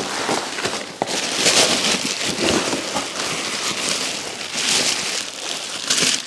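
Plastic packaging being pulled off and crinkled, a run of crackling rustles with a few sharp clicks, as an exhaust part is unwrapped.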